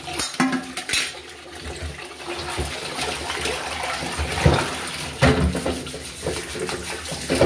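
Tap water running steadily into a stainless steel sink while a steel plate and a metal kadhai are rinsed and scrubbed by hand under the stream. A few knocks of the metal vessels against the sink, the loudest about halfway through.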